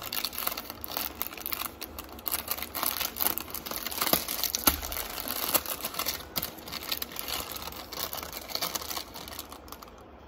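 Packaging crinkling and rustling as it is handled: a dense run of crackles and small clicks that thins out near the end.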